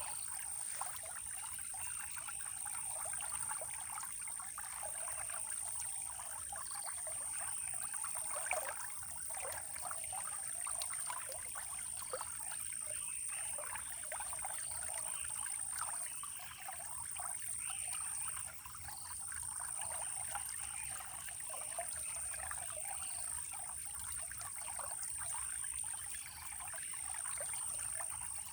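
Running water trickling and splashing, a busy, even babble, with a steady high-pitched whine held above it.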